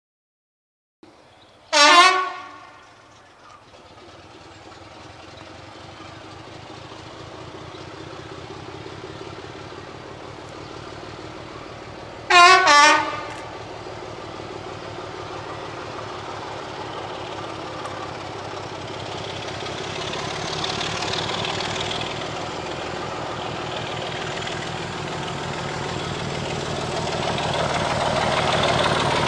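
Diesel locomotive horn: one loud blast about two seconds in, then two short blasts in quick succession about ten seconds later. Between and after the blasts the locomotive's engine and the train's running noise grow steadily louder as it approaches.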